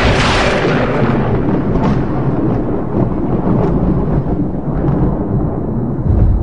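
Thunder sound effect: a sharp thunderclap at the start that fades over about a second into a long, low rumble.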